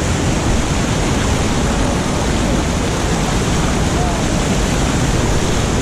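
Small waterfall rushing steadily, a dense, even wash of falling water.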